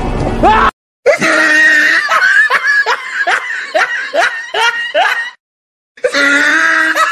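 A high-pitched cackling laugh: a rapid run of short rising cries, about three a second, that cuts off sharply, followed after a brief silence by a long held cry near the end.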